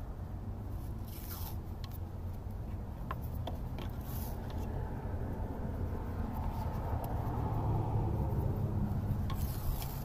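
Fabric wiring-harness tape being wrapped around a wire bundle: rubbing and handling, with three brief rasping pulls of tape off the roll, about a second in, about four seconds in and near the end, over a steady low rumble.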